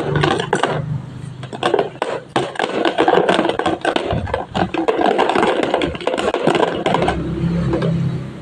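Rapid, irregular clattering and scraping of kitchenware, with many small knocks and rattles in quick succession.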